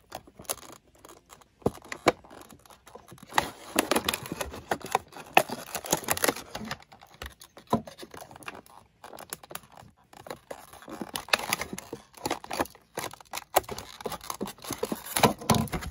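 Fingers picking, scratching and tearing at the clear plastic packaging of an amiibo box: irregular crinkles, clicks and scrapes.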